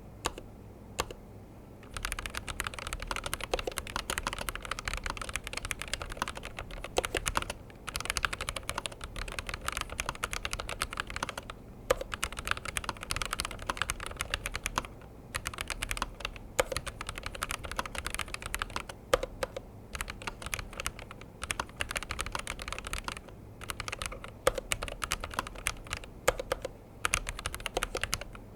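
Razer BlackWidow V4 Low-Profile HyperSpeed low-profile mechanical keyboard being typed on quickly, a dense run of key clicks broken by short pauses, with a few louder single strokes standing out.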